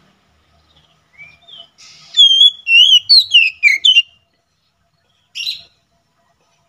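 Oriental magpie-robin singing: a quick, loud phrase of varied whistled notes sliding up and down, about two seconds long, followed a little later by one short harsh note.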